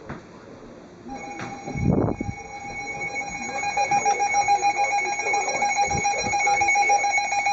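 Emergency Alert System attention signal: a steady electronic alert tone that starts about a second in and holds, sounding over fainter TV programme audio, with a brief low thump just after it begins.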